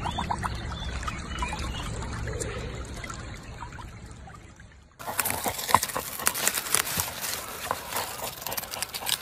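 Water trickling and splashing around a husky lying in a shallow muddy pool, fading out over the first few seconds. About five seconds in the sound cuts to a dog digging in loose soil: a quick, dense run of scratches and scrapes.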